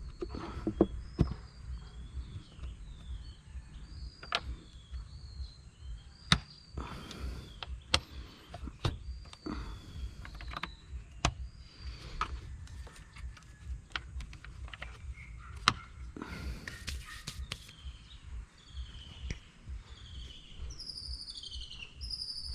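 Sharp plastic clicks and knocks, scattered irregularly, from the air filter box being handled and closed up, while small birds chirp throughout, louder near the end.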